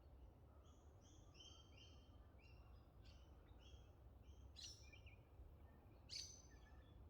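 Faint bird calls: a run of short, even chirps for the first few seconds, then two sharper calls, the second the loudest, over a low steady rumble.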